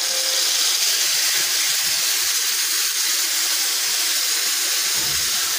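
Wet onion-garlic-spice paste frying in hot oil in a steel kadhai, a loud steady sizzle, with a few faint low knocks from the spatula stirring it.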